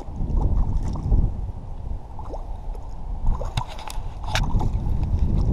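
Wind buffeting the microphone in a low, uneven rumble while a hooked crappie is reeled in. A few short, sharp sounds come between about three and a half and four and a half seconds in.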